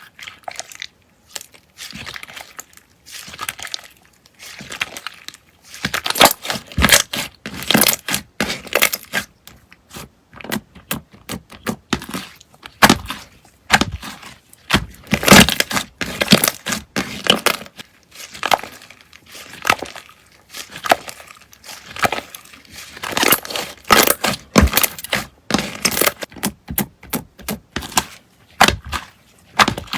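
Slime being pressed and squeezed by hand, giving clusters of sharp crackling and popping that grow denser and louder from a few seconds in.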